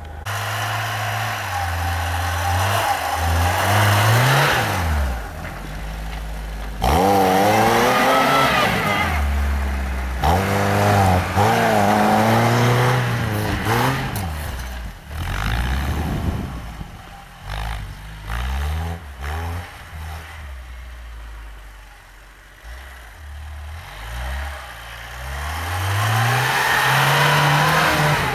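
Lada Niva's engine revving hard and easing off again and again as the 4x4 churns through deep snow, wheels spinning and throwing up snow. It goes quieter for a few seconds past the middle before revving up again near the end.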